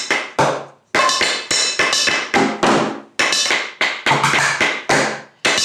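Improvised kitchen drumming: wooden spoons and thin sticks striking upturned plastic food containers, a plastic jug and a metal pot in quick rhythmic runs of sharp taps, with short breaks about a second in and just after three seconds. The bigger containers give deeper sounds and the smaller ones higher.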